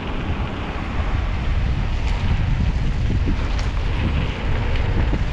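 Wind buffeting a GoPro's microphone on the move: a steady, heavy low rumble with a faint hiss and a few small ticks.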